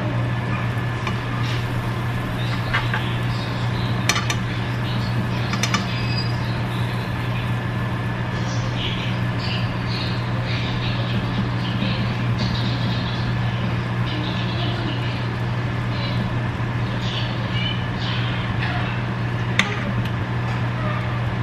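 Toast frying in butter in a skillet, sizzling, with a few sharp clinks of a metal fork against the pan. A steady low hum runs underneath.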